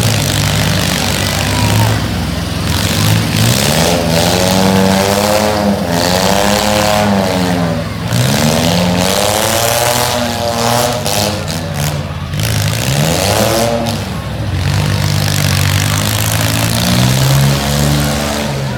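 Demolition derby truck engines revving hard again and again, the pitch climbing and dropping every second or two, with a few short knocks in the second half.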